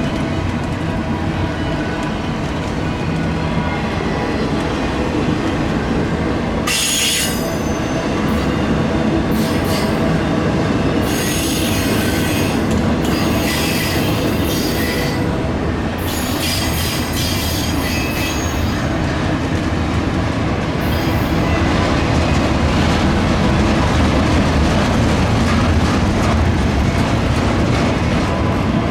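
Freight train cars rolling past with a steady low rumble, and high wheel squeal coming and going in stretches from about seven seconds in until about eighteen seconds.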